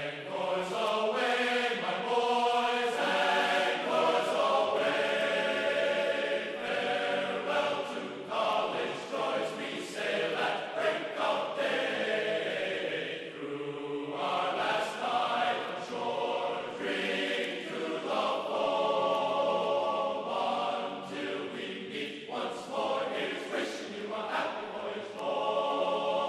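Choral music: many voices chanting together in long held chords that shift every second or two.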